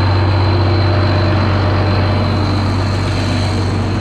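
Large diesel farm engine running loudly and steadily at constant speed: a deep even drone with a faint, thin high whine above it.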